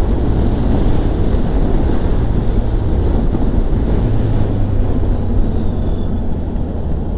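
Honda CBR650F inline-four engine running steadily under way, with wind rush on the microphone, as the bike slows from road speed.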